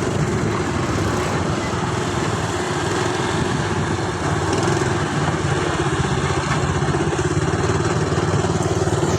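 Motorcycle engine running at a steady speed in road traffic, with even road noise underneath.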